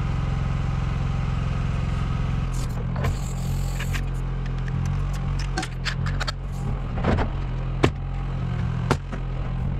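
A pneumatic framing nailer being loaded with a strip of 3¼-inch galvanized nails, with scattered clicks. Near the end it fires twice, two sharp shots about a second apart, into tongue-and-groove roof boards. A steady low motor hum runs underneath.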